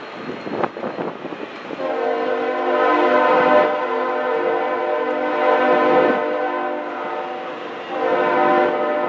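Locomotive air horn on the CSX Office Car Special, sounding a chord of several steady notes over the rumble of passenger cars rolling on the rails. The horn comes in about two seconds in and holds. It eases briefly, then sounds again near the end.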